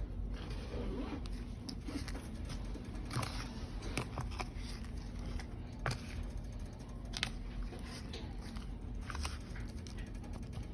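Scattered light clicks and taps of kitchen handling while coating chicken pieces in seasoned flour, over a low steady hum.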